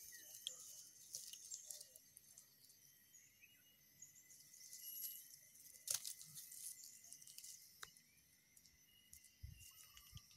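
Near silence: faint outdoor ambience with short, high insect chirps and a thin steady high tone, broken by one sharp click about six seconds in and a few soft thumps near the end.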